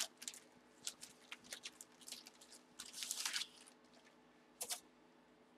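Wrapping crinkling and rustling as it is handled: a run of short crackles, a longer rustle about three seconds in, and a single click near the end.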